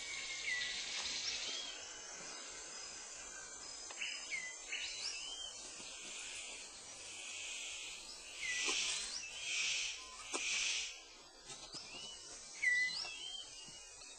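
New Guinea rainforest ambience: a steady high insect hiss with repeated short, hooked bird chirps. Three louder rustling swishes come close together a little past the middle.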